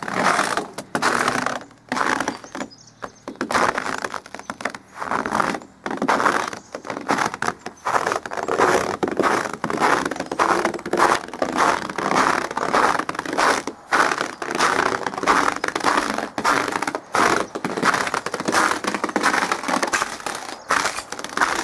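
Boots crunching through fresh snow, one step after another at a steady walking pace.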